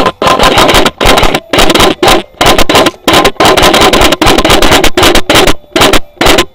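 Airsoft gun firing loudly in rapid full-auto bursts, each a dense string of sharp clicks with short pauses between bursts.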